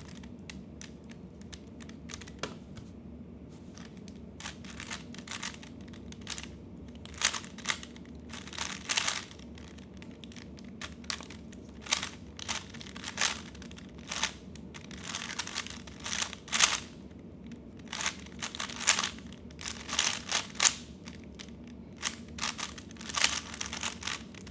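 3x3 Rubik's cube being turned by hand, its plastic layers clicking and clattering. The turns come sparsely at first, then in quick bursts.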